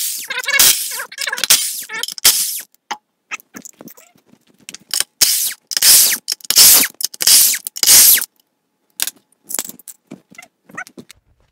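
Cordless impact wrench run in short repeated bursts, spinning off lug nuts that were already broken loose, with a few light metallic clinks near the end.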